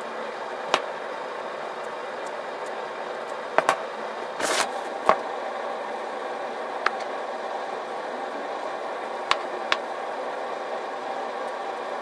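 Utility knife trimming a hook-and-loop sanding disc against a wooden block: sharp clicks scattered through, and one short scratchy cut about four and a half seconds in, over a steady background hum.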